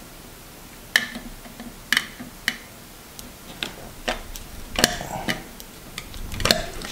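Craft knife blade cutting into the thick plastic sleeper base of a PECO N scale turnout, giving about seven sharp, irregularly spaced clicks and snaps as the blade bites and slips through the hard plastic.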